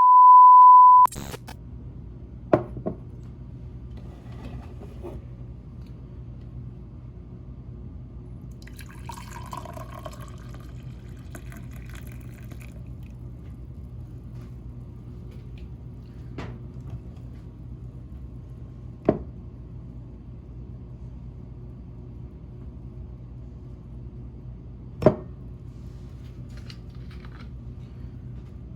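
A single steady electronic beep lasting about a second, then a low steady hum with a few faint sharp clicks scattered through it.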